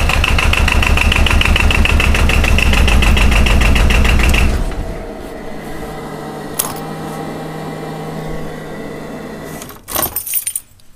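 Arctic Cat 700 Diesel ATV's two-cylinder diesel engine running with a fast, even clatter. The clatter cuts off about four and a half seconds in, leaving a quieter steady hum, and a short burst of knocking handling noise comes near the end.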